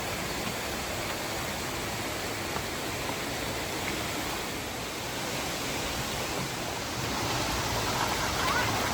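Steady rushing of falling water from a waterfall, a little louder near the end.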